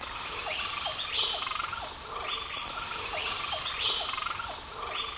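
Forest ambience of crickets trilling steadily, with frogs calling in short, repeated notes about twice a second.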